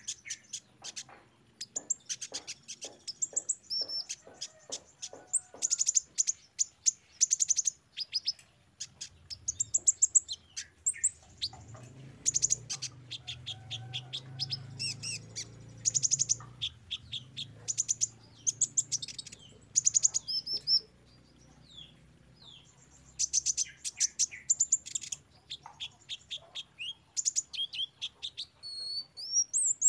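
Van Hasselt's sunbird singing in high-pitched bursts of rapid chirps and fast ticking trills, with brief pauses between phrases.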